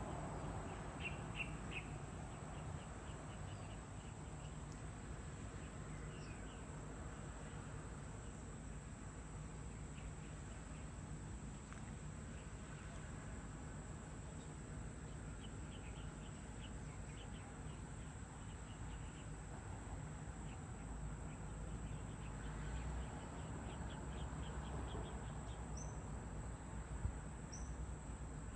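Outdoor morning ambience: small birds give short chirping trills now and then over a faint steady insect drone and a low background hum. Near the end come two brief high chirps.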